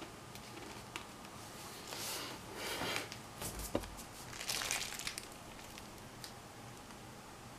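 Handling noises: scattered rustling and a few small clicks, with a soft low bump a little before halfway through.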